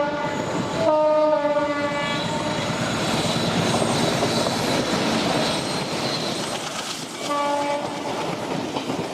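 Diesel locomotive horn blast lasting about a second near the start, then the rumble and clickety-clack of the train running on the track, and a short second horn toot near the end.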